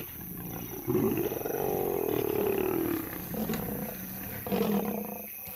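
Lions growling and snarling in a confrontation between a nomad male and lionesses: one long, slowly falling growl from about a second in, then a shorter one near the end.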